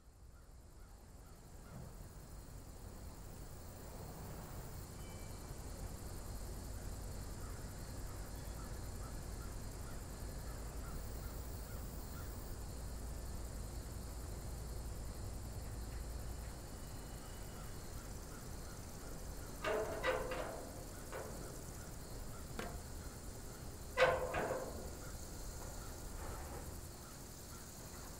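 Faint outdoor ambience: a low rumble fades in over the first few seconds and holds steady. Bird calls, crow-like caws, come in a short run about twenty seconds in and once more, louder, about four seconds later.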